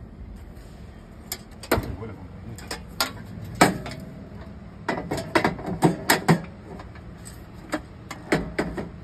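Hinged sheet-metal cover of an outdoor meter-main enclosure being handled and fitted into place: a series of sharp metal clanks and clicks, thickest about five to six and a half seconds in.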